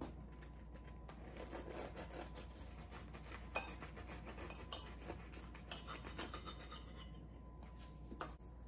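Quiet rasping and scraping of a crusty bread roll being handled and cut with a knife on a plate, a run of quick strokes that stops near the end, with a few light clicks.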